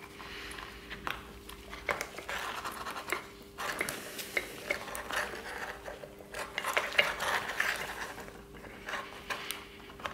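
A Ferodo Racing brake pad being worked by hand into a brake caliper. The steel backing and the pad's spring clip scrape and click against the caliper body, with irregular small metallic clicks and rubbing throughout. A faint steady hum sits underneath.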